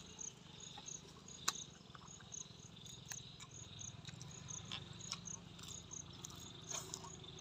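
Field insects chirping in a steady, evenly repeating high pulse, about two to three chirps a second. Over it come a few sharp snaps and crunches from raw leafy greens being broken by hand and chewed. The loudest snap comes about one and a half seconds in.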